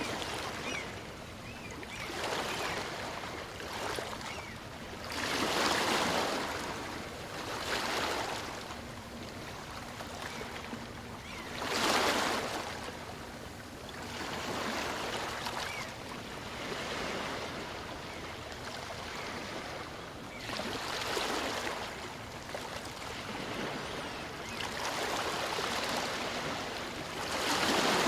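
Small waves on a calm sea breaking and washing up the beach. Each wash swells and fades every few seconds, and a few are louder than the rest.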